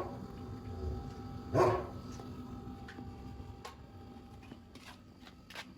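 A dog barking: one loud bark about a second and a half in, with faint clicks and knocks after it.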